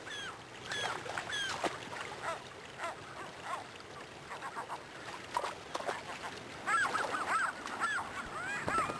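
Gulls calling over a rushing river: a few scattered calls, then many overlapping calls from about seven seconds in, with the even rush of the water underneath.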